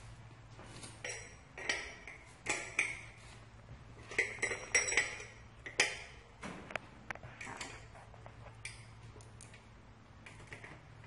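Metal BMX wheel hardware (axle, bolts and hub parts) clinking and tapping together in a string of sharp clinks, busiest from about two to six seconds in, over a steady low hum.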